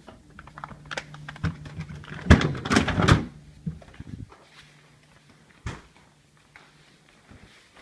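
Knocks and a clatter of things being handled while groceries are unloaded, loudest about two to three seconds in, over a low steady hum that stops a little past halfway, with one more knock later.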